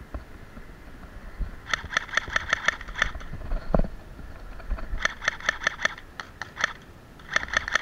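Cyma CM030 Glock 18 electric airsoft pistol firing rapid single shots in three quick strings, about six or seven sharp clicking shots a second, with a single dull thump between the first two strings.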